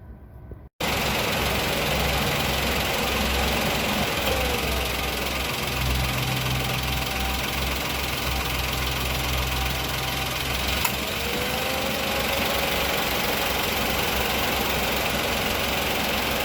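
Loud, steady mechanical noise with a low throbbing rumble in a 2023 Perodua Axia with the engine running, the noise the owner links to the air-conditioning compressor stopping. It cuts in abruptly a moment in, and a low hum rises and falls within it.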